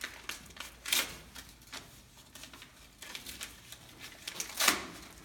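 Tissue paper crinkling and rustling as a gift box is unwrapped, in short scattered rustles, with a louder one about a second in and the loudest near the end.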